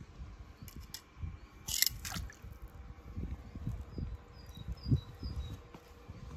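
A small die-cast toy car dropping into a swimming pool, a short sharp splash about two seconds in, over low rumbling and a few faint high chirps.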